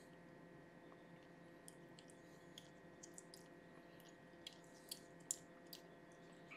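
Faint, sparse wet clicks and smacks of a week-old kitten suckling on a syringe nipple, over a faint steady hum; the loudest smack comes a little past five seconds in.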